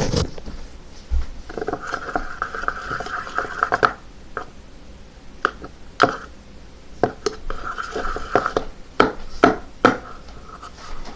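Soft, wet slime being squished and worked by hand, giving sharp little pops and clicks at irregular intervals. A steady high-pitched hum comes and goes twice behind it.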